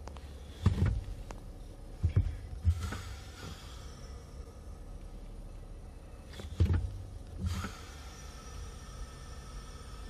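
Brake pedal of a 2007 Ford Edge pressed and released several times: dull thumps from the pedal in two groups, about 2 s and 6.5 s in, with a brief hiss after some of the presses over a steady low hum.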